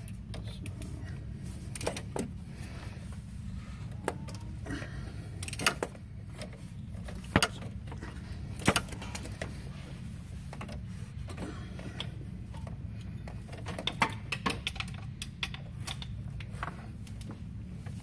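Hand ratchets on two E12 Torx sockets turning the crankshaft bolts, with scattered metallic clicks and clanks of the tools over a steady low hum. The crank is being rotated by hand to roll the AC compressor's stretch belt onto the pulley with an installer tool.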